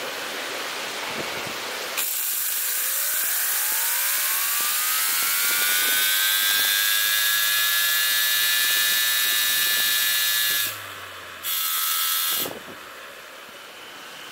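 Homemade model steam turbine run on live steam: about two seconds in the steam comes on with a sudden loud hiss and the rotor spins up with a rising whine that levels off into a high steady whine. Near the end the steam is cut, comes back briefly at a lower pitch, then stops, leaving wind noise.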